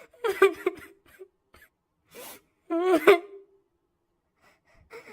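A girl crying and whimpering: two shaky, wavering sobs, the first just after the start and the second about three seconds in, with a sharp breath drawn in between and faint sniffling breaths near the end.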